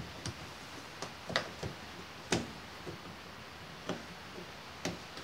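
Hands working an Electrolux washing machine's rubber door gasket onto the metal rim of the front panel: about ten sharp, irregular clicks and taps.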